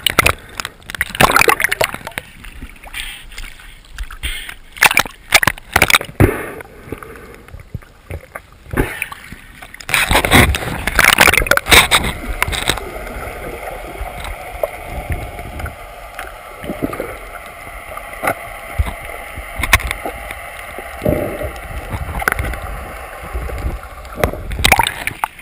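Water sloshing, gurgling and splashing around a GoPro camera in the sea at the surface, with many short sharp splashes. After about 13 s it settles into muffled underwater noise with a faint steady hum.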